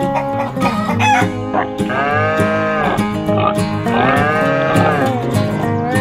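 A rooster crowing twice, about two and four seconds in, over steady background music.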